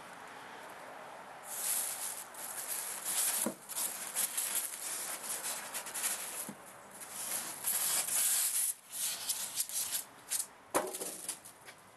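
Clear plastic packaging bag rustling and crinkling in irregular bursts as gloved hands handle it, starting about a second and a half in. A few sharp knocks break in, the loudest near the end.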